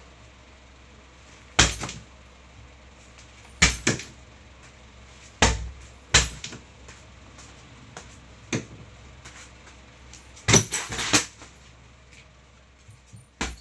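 Boxing gloves punching a hanging heavy bag: about ten sharp thuds at uneven intervals, some coming two or three in quick succession, over a steady low hum.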